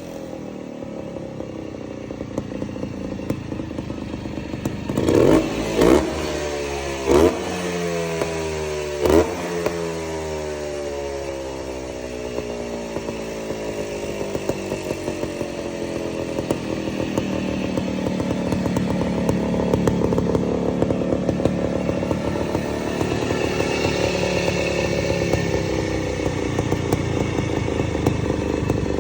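Montesa Cota 247 trials motorcycle's two-stroke single-cylinder engine running, with four quick throttle blips a few seconds in, each falling back to idle. It then runs on steadily, its speed slowly rising and easing off again.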